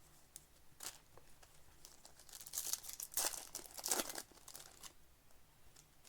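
Plastic trading-card pack wrappers crinkling and tearing as card packs are opened by hand, in scattered bursts that are busiest in the middle.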